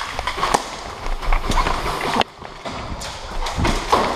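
Boots stepping and scuffing on a hard tile floor, in irregular footfalls with sharp knocks among them.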